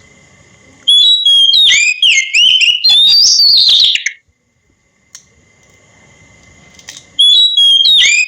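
Oriental magpie-robin singing: a loud burst of varied whistled phrases with quick rising and falling notes lasting about three seconds, then a pause, and another burst starting near the end. A faint steady high tone carries on underneath.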